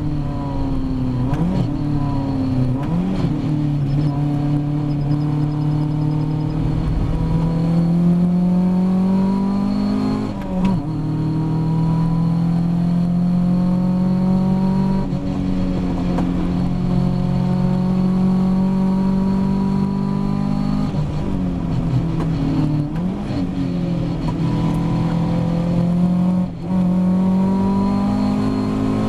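Ginetta G40 race car's four-cylinder engine under hard load, heard from inside the cockpit: its note climbs and falls repeatedly through gear changes, with brief lifts off the throttle about ten seconds in and again near the end.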